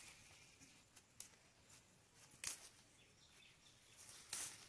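A few brief, faint rustles of a bunch of leafy red amaranth stalks being handled, over otherwise quiet surroundings.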